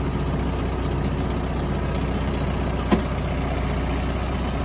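Farm machine's diesel engine running steadily at idle while it powers a hydraulic post driver, with a single sharp knock about three seconds in.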